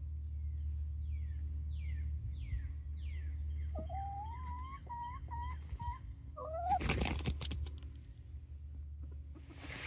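Young chickens (pullets) calling: a few high falling chirps, then rising whistled calls and short notes. About seven seconds in comes a brief loud flurry, wing flaps as a bird hops up onto the sitter's knee.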